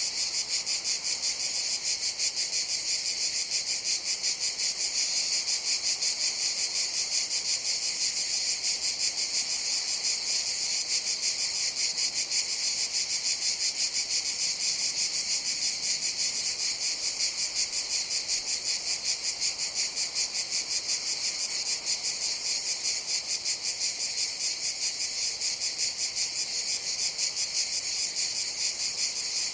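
Cicadas buzzing in a continuous high-pitched chorus with a rapid pulsing throughout.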